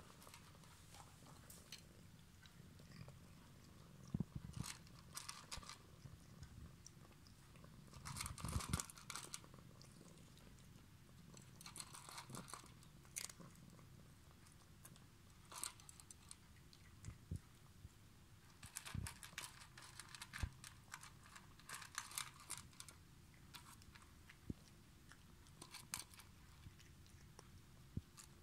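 A cat crunching dry kibble from a stainless steel bowl, in irregular bouts of quick crisp crunches with short pauses between.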